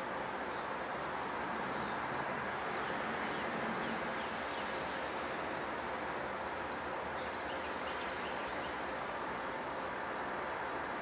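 Steady outdoor background hum, with small birds chirping faintly now and then.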